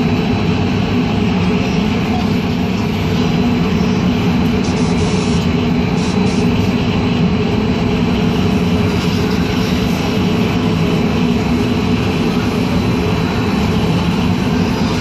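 Strong hurricane-force wind blowing, a loud steady rush that holds without letting up.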